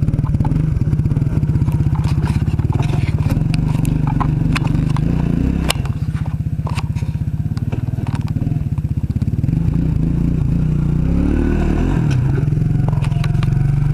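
Suzuki QuadRunner 4WD ATV's single-cylinder engine running steadily at low revs, its pitch rising and falling briefly about eleven seconds in. Sharp cracks and scrapes of brush and twigs against the machine sound through it.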